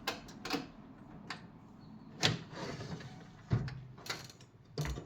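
Metal tool chest drawers sliding open and shut, with several short clunks and rattles as the drawers move and stop.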